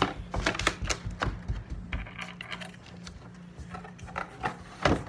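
A stirring utensil clinking and tapping against a stainless steel mixing bowl as batter is mixed: irregular sharp clinks a few times a second, with a louder one near the end.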